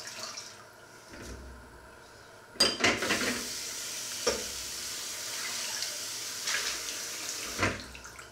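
Washing up a pan in a stainless steel sink: quiet scrubbing and light knocks, then a loud clatter of the pan against the sink about two and a half seconds in, and the tap running onto it with a few more clanks, the water stopping shortly before the end.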